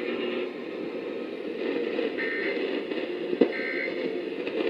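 Emergency Alert System end-of-message data bursts received over radio static, closing the National Weather Service warning: two short, high buzzing bursts about a second and a half apart over a steady hiss. A sharp static click comes just before the second burst.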